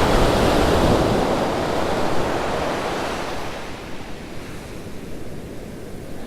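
Ocean surf on a beach: a wave breaks and its wash hisses, loudest at first and fading away over several seconds.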